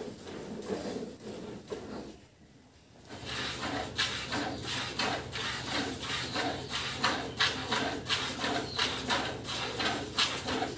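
Cow being milked by hand into a plastic bucket: rhythmic squirts of milk striking the milk already in the bucket, about two a second. The sound drops away briefly about two seconds in, then the squirting goes on steadily.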